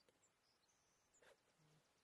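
Near silence of a wild outdoor scene: faint, high bird chirps, a soft click a little past a second in, and a short low call near the end.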